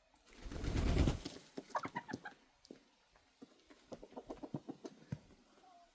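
Backyard chickens clucking in short runs of quick, sharp calls. A louder rush of noise comes about the first second in.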